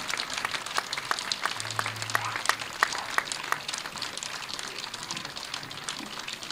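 Audience applauding at the close of a lecture, a dense patter of clapping that thins and grows fainter over the last few seconds.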